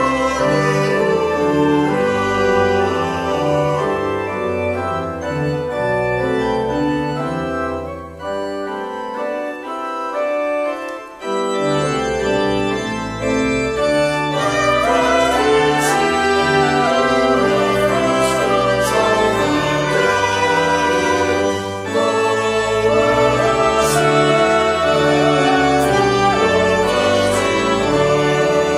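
A small mixed choir singing with organ accompaniment, the notes held and moving in steps. The low bass notes drop out for a couple of seconds about ten seconds in, then return.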